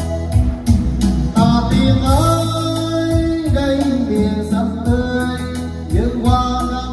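A man singing into a handheld microphone over a karaoke-style backing track, played loud through a PA speaker system run as 3-way with subwoofers, with heavy bass.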